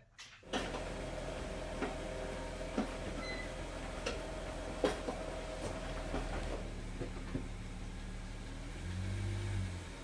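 Mercedes SLK 350's 3.5-litre V6 idling steadily after its faulty ignition coil has been replaced, with a few light clicks over it and a short swell near the end.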